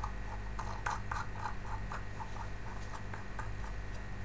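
Plastic threaded fitting being screwed by hand onto a plastic pond pump's outlet: a run of small, irregular plastic clicks and scratches.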